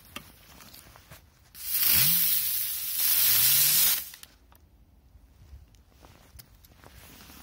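A small firework spraying sparks with a loud hiss for about two and a half seconds, in two surges, with a low whirring tone that rises and falls under it. It ends without a bang.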